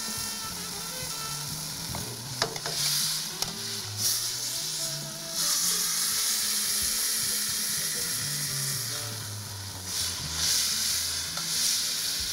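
Tied beef tenderloin searing in hot oil in a pan, sizzling steadily and swelling louder in places as the meat is turned with metal tongs. A few sharp clicks of the tongs on the pan.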